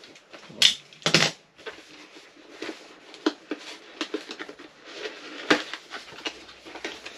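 A cardboard box being opened by hand: cardboard and packing tape crackling and rustling, with a few sharp taps and clicks of the box being handled.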